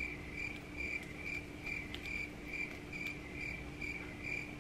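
Steady, rhythmic high-pitched chirping, about two chirps a second, of the kind a cricket makes, over a faint steady low hum.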